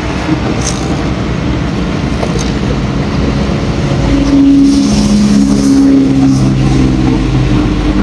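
Heavy diesel engine running steadily, speeding up and getting louder about four seconds in.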